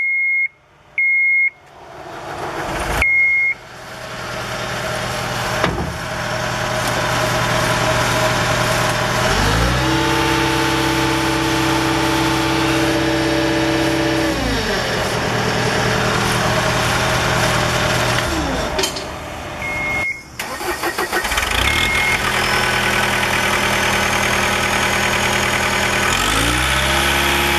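John Deere 323D tracked skid steer loader: a few short electronic warning beeps, then its diesel engine starts and runs. It is revved up to a higher, steady speed for several seconds and let back down to idle, then revved up again near the end.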